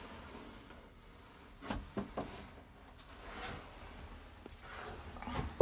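A few light knocks, three close together about two seconds in and a louder one at the very end, with soft rustling in between.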